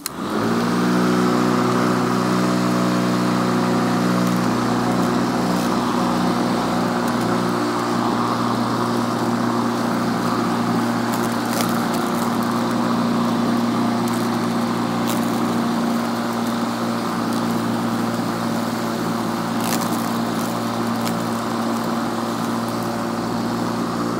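Black & Decker cordless electric lawn mower's motor starting up and running with a steady hum and whine as it is pushed across grass, with a few brief sharp ticks midway. It runs at full power on a newly replaced battery, like brand new again.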